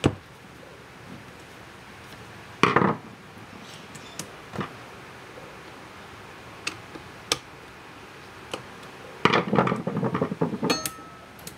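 Sharp metal clicks and clinks from a chainsaw attachment for an angle grinder as its chain-tension screw is turned with a screwdriver, with a short clatter about 3 s in. Near the end a longer rattling of the saw chain's links as the chain is pulled by hand along the bar to check the tension.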